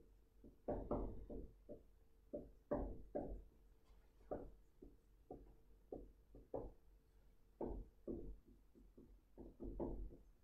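Handwriting: irregular light taps and knocks of a pen or marker on a writing surface, some in quick clusters, over a faint steady hum.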